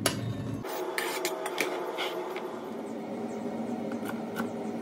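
Kitchen knife slicing garlic cloves on a plastic cutting board: irregular sharp taps of the blade against the board, over a steady faint hum.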